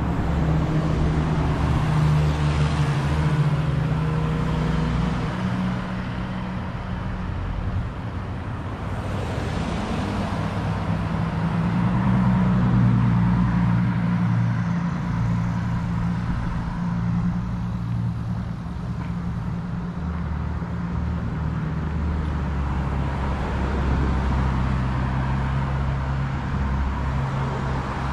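Downtown street traffic: motor vehicle engines running close by with a steady low hum, and cars passing now and then.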